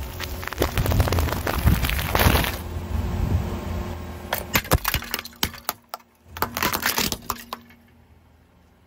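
Car tyre rolling over and crushing foil snack packets: dense crackling over a low rumble. Then a run of sharp cracks and crunches as a tyre breaks a white ceramic plate into shards, stopping well before the end.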